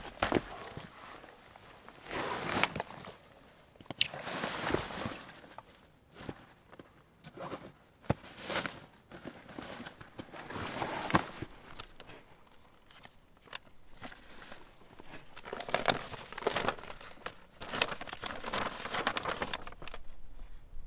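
A hiker's rucksack set down on rock, then irregular rustling of the pack's fabric with a few sharp clicks as it is rummaged through, ending in the crinkle of a paper map being unfolded.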